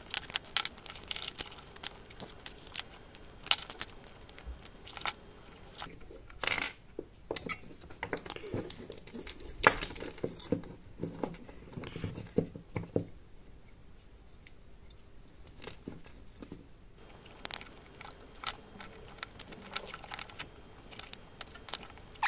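Irregular clicks, taps and light scrapes of hands working on a multiturn absolute encoder's metal housing and wire bundles with a screwdriver. They are busiest in the first half, with a quieter lull partway through before a few more clicks.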